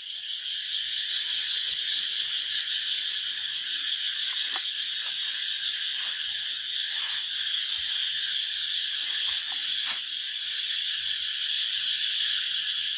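Steady, high-pitched insect chorus shrilling without a break, with a few faint crinkles and knocks from plastic packaging and machine parts being handled.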